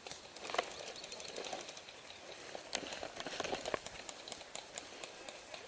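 Faint, irregular clicking and crackling with a light rustle, a few sharper clicks standing out, but no steady rhythm.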